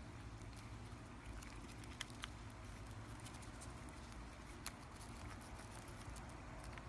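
Faint scattered clicks and crunches as a chipmunk nibbles food and stuffs it into its cheeks, with a few sharper ticks about two seconds in and near five seconds in. Under them runs a steady low background rumble.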